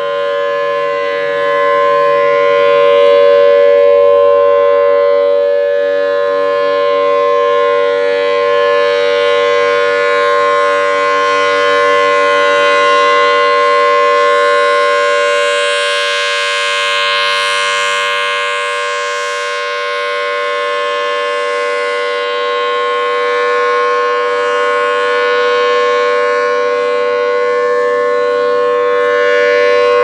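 Federal Signal Thunderbolt 1000T outdoor warning siren sounding its steady alert tone. The rotating horn makes the tone swell and fade slowly, loudest a few seconds in, around the middle and near the end as the horn faces the listener.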